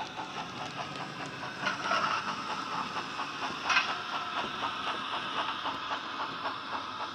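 Bachmann J11 OO-gauge model 0-6-0 steam locomotive running with its Wheeltappers DCC sound decoder, playing a quick regular beat of steam exhaust chuffs through the model's small onboard speaker along with the rattle of model wheels on track. It grows louder as the locomotive passes closest, a little under four seconds in.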